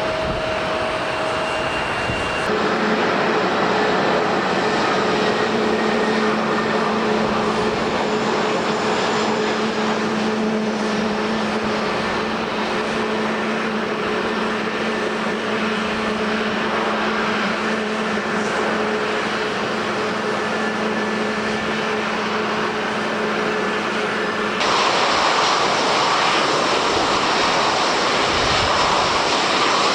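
Airliner engines running with a steady whine over the hiss of heavy rain and gusting wind. The sound changes abruptly twice, about two and a half seconds in and near the end.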